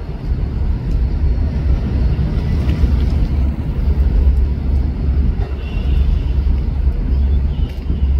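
Low, steady rumble of a high-speed catamaran ferry's engines and wash as it manoeuvres slowly in to berth.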